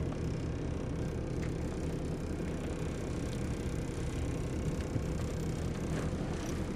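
Boat engine running low and steady, a constant low hum with wind and water noise over it.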